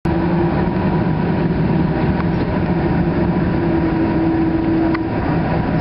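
Cabin noise of an Airbus A300-600R airliner taxiing, its General Electric CF6-80C2 turbofans running steadily at low power: a loud, even rush with a steady low hum and a faint higher tone.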